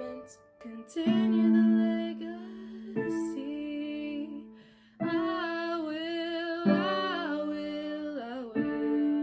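Piano accompaniment with a woman singing long, held notes that waver in pitch, with short pauses near the start and about halfway through.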